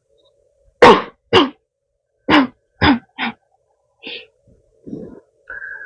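A woman coughing five short, sharp coughs, two and then three in quick succession, followed by softer breaths and a short throat sound near the end. It is coughing she puts down to a weak throat.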